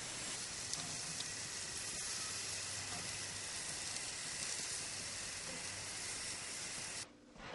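Meat kebabs on wooden skewers sizzling on a gas grill: a steady frying hiss with a few faint crackles, cutting off suddenly near the end.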